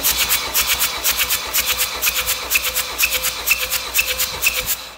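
Starter motor cranking a Kia D4HB 2.2-litre turbodiesel for a cold compression test on cylinder one, a rhythmic chugging of about four or five beats a second that stops shortly before the end. The gauge climbs to 25 kg/cm², a healthy cold reading.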